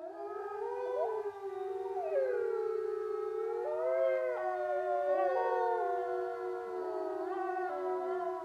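A pack of wolves howling in chorus: several long howls overlap at different pitches, each gliding up and down.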